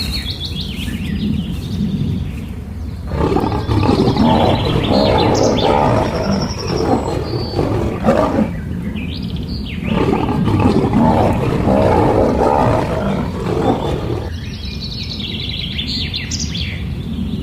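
Two long stretches of a large animal roaring, each about five seconds, over a continuous low rumble. Birds chirp near the start and again near the end.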